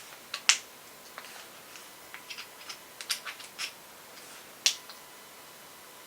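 A series of sharp clicks and light taps from a torque screwdriver and its bits being handled. The two loudest clicks come about half a second in and near the end, with a quicker cluster of smaller taps in between.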